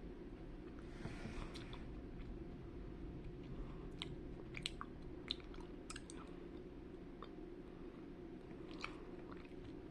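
Faint chewing of a gummy candy strip, with soft wet mouth clicks scattered throughout over a low steady room hum.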